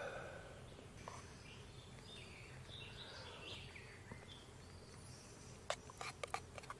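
Several birds chirping and singing faintly. Near the end, a few sharp clicks of a spoon against a camping pot.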